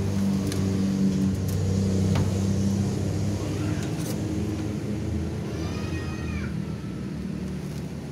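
A steady low mechanical hum with a few sharp clicks. A cat meows once, about three-quarters of the way through.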